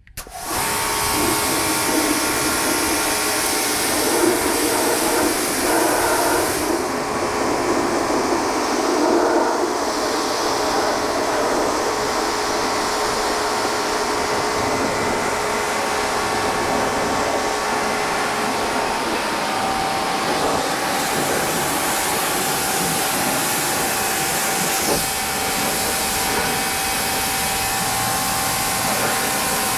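Pressure washer running steadily, its high-pressure water jet hissing against the mud on a tractor's tyre and body. It starts abruptly, and a steady whine joins partway through.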